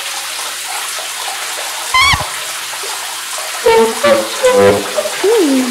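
Modular-synthesizer sound effects: a steady water-like hiss, with a short warbling chirp about two seconds in, then a flurry of short pitched blips and a falling glide near the end.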